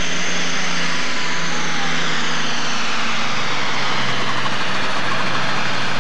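Super stock pulling tractor's turbocharged engine running flat out under load as it drags a weight-transfer sled, a loud, dense engine and exhaust noise. About halfway through, the engine note drops to a lower pitch.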